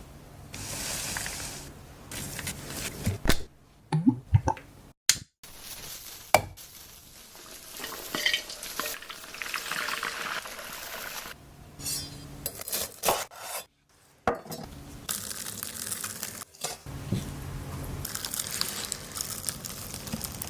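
Kitchen cooking sounds: utensils knocking and scraping against pots and pans, and stirring, with a few sharp clanks. It comes in short pieces broken by abrupt cuts.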